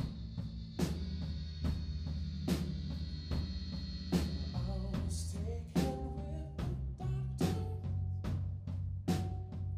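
Live rock band playing an instrumental passage: a drum kit keeps a steady beat, one hit about every 0.8 seconds, over electric bass. A high held tone sounds through the first half, and melodic notes come in about halfway.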